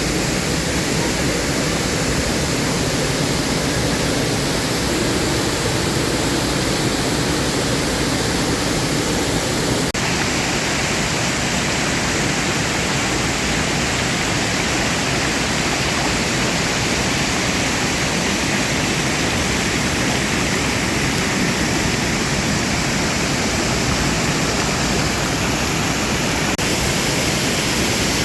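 Waterfall rushing: a steady, loud wash of falling water. About ten seconds in, its tone changes abruptly and becomes brighter and less full.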